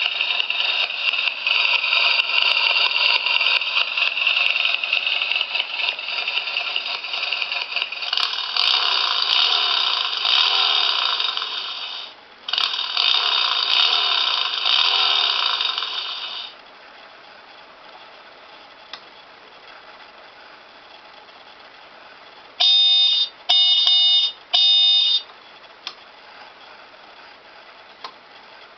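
A model motorcycle's built-in sound unit playing a recorded Harley-Davidson engine through a small speaker, thin with no bass, the revs rising and falling; it drops out briefly about twelve seconds in and stops a few seconds later. After a pause, three short tonal honks or beeps from the same speaker.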